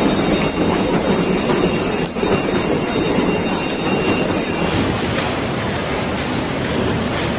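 Heavy hail and rain pelting down in a dense, steady clatter during a hailstorm. The sound changes abruptly about five seconds in.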